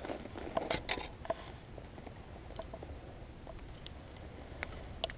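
Faint scattered clicks and rustles with a couple of light metallic clinks as a freshly caught bass and a spinning rod are handled on the bank.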